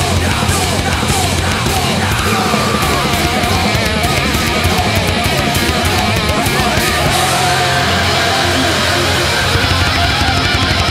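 Fast, aggressive punk-metal music: a drum kit played hard with frequent cymbal hits, over distorted electric guitar.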